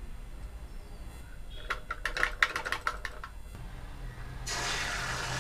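A spoon clinking in quick succession against a small steel bowl as the egg is beaten. Near the end, a steady sizzle starts as the beaten egg is poured into hot oil in a kadai.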